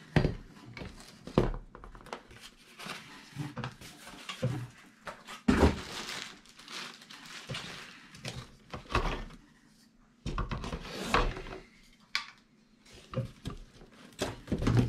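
Cardboard box and packing being handled: rustling and scraping of cardboard with irregular knocks and thumps as metal detector parts, the shaft and the coil with its cable, are lifted out.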